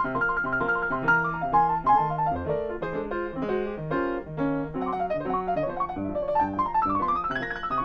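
Solo grand piano playing chords over a repeating bass line. Near the end it has a quick run down and then back up the keyboard.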